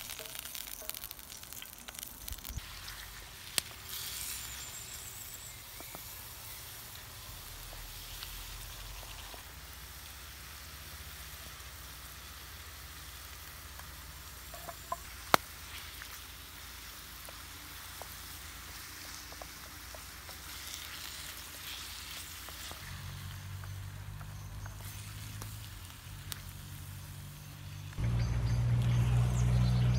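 Cabbage, mushrooms and beef tongue sizzling steadily in a frying pan over a campfire, with a few sharp clicks. Near the end a louder low steady hum sets in.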